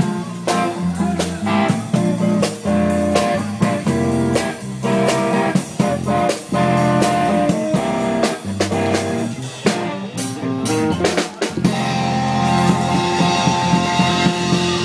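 Music with guitar and a drum kit keeping a steady beat; about ten seconds in a few sharp drum hits lead into held chords.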